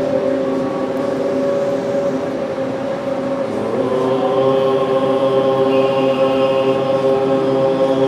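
Slow devotional chant: voices holding long, steady notes, sliding up to a new pitch about four seconds in and holding again.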